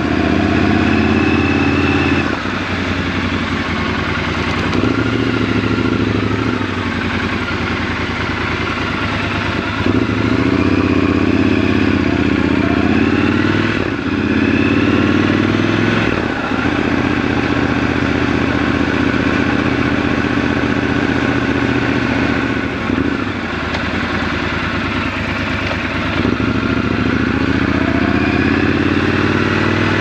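Triumph Scrambler 1200 XC's 1200 cc parallel-twin engine running on the move, revving up and easing off through several gear changes.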